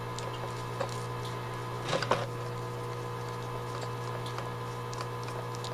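Small screwdriver clicking and scraping faintly on the screws of a carburetor's diaphragm cover, a few light clicks with the clearest about two seconds in, over a steady low electrical hum.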